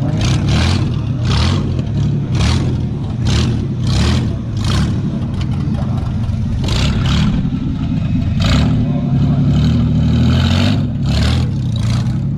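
Ford Mustang's V6 engine running as the car drives, its note shifting a few times. Short, sharp noises repeat over it about once or twice a second.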